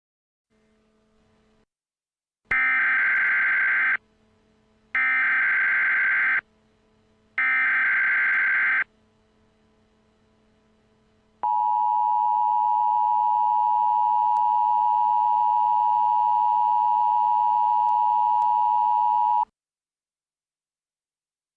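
Emergency Alert System broadcast alert: three short bursts of warbling digital data (the SAME header), each about a second and a half long with about a second between them, then the steady two-tone attention signal held for about eight seconds and cut off sharply. It signals that an emergency alert message is about to be broadcast.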